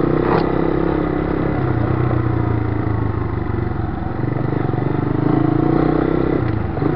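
Motorcycle engine running steadily, its pitch dropping near the end as it slows.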